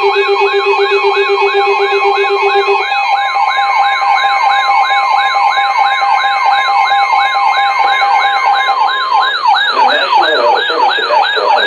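NOAA weather alert radios alarming together: an electronic siren-type alarm warbling up and down about three times a second over steady alert tones. A pulsing low beep stops about three seconds in, and the steady tones cut off near the end, leaving the warble.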